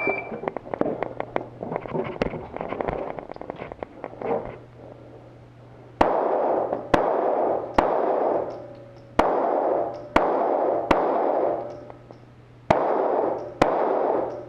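A shot timer beeps once at the start. After a few seconds of handling noise, a pistol fires a course of fire: about eight loud shots roughly a second apart in groups of two or three, each echoing off the range.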